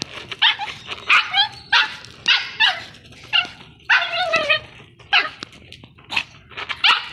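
Chihuahua play-barking at a basketball: a quick run of short, high-pitched yaps, about two a second, with one longer bark about four seconds in.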